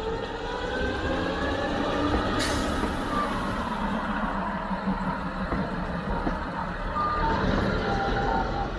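Engine of the Ganz ABAmot 2 narrow-gauge railcar pulling away and running close by. Its pitch rises over the first two seconds as it accelerates, then drops about three seconds in. There is a sharp click about two and a half seconds in.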